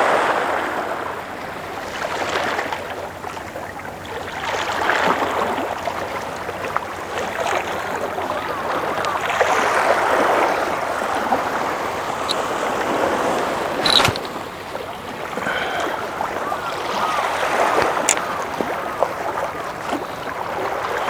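Sea water washing and gurgling against the shore in surges that swell and ebb every few seconds, with a sharp click about two-thirds of the way through.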